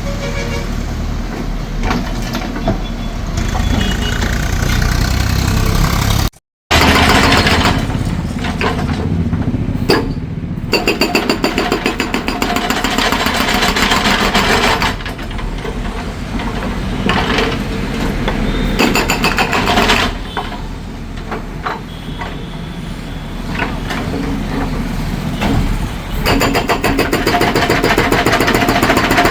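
Heavy construction machine's diesel engine running, with stretches of rapid, evenly repeated hammering from a hydraulic concrete breaker. The sound cuts out briefly about six seconds in.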